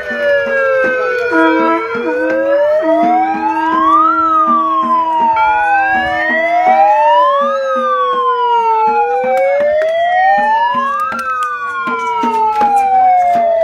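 Wailing siren, its pitch sweeping slowly up and down about every three and a half seconds, with two wails overlapping.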